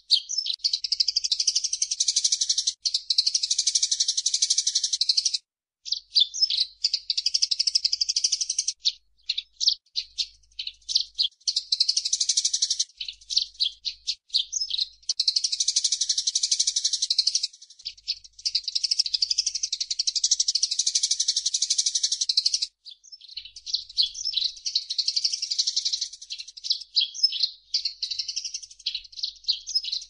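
Eurasian tree sparrow chirping and chattering rapidly in long, dense, high-pitched runs, broken by a couple of brief pauses. Between the runs come stretches of separate quick chirps.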